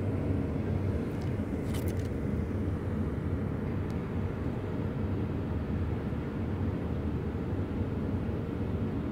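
Steady low rumbling noise, like a distant motor or traffic, with a few faint clicks about two seconds in.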